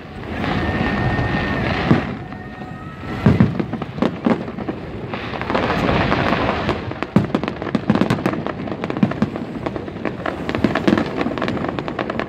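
Fireworks display: booming shell bursts with hissing rushes, a thin high tone in the first two seconds, then dense rapid crackling from about seven seconds in.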